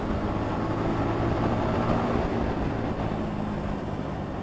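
Yamaha XSR155's 155 cc single-cylinder engine running steadily as the motorcycle is ridden.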